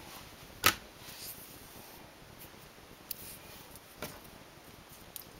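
Quiet handling sounds of hands tying yarn at a knitting machine's needle bed: soft rustling of the yarn, with one sharp click about two-thirds of a second in and two lighter ticks later.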